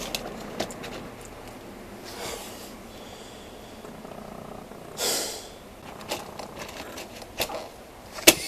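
Scraping and clicking of a dryer vent cap being forced into the wall vent opening, which is too small for it. A louder scrape comes about five seconds in and a sharp click near the end.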